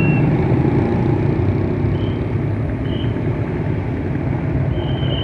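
A bus engine running steadily as it passes on the road. A few brief high-pitched squeals come about two and three seconds in, and a longer one near the end.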